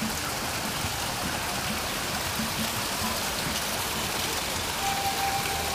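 Steady rush of running water from a small landscaped stream or waterfall among rocks. A single steady held tone comes in near the end.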